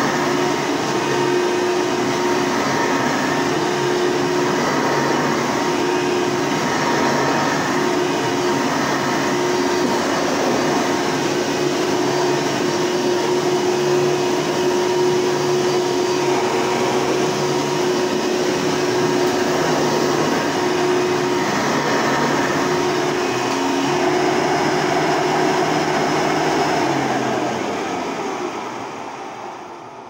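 Hoover Tempo soft-bag upright vacuum cleaner running steadily with a constant motor tone while it is worked over carpet. Near the end it is switched off and the motor winds down.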